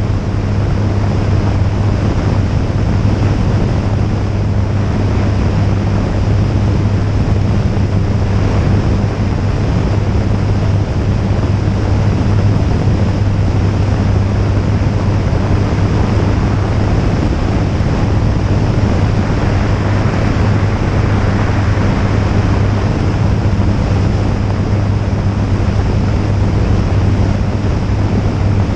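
Jabiru J160 light aircraft in level flight: its four-cylinder Jabiru engine and propeller drone at a steady, unchanging pitch, with heavy wind rush over the externally mounted microphone.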